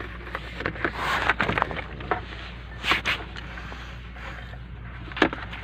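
Plastic dashboard trim and wiring being handled: scattered clicks and knocks, with a louder rustling scrape about a second in and another about three seconds in, over a steady low hum.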